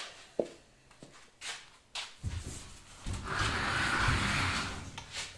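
Workshop handling noises: a few light knocks in the first two seconds, then about two seconds of scraping and rubbing, as of something being slid or shifted.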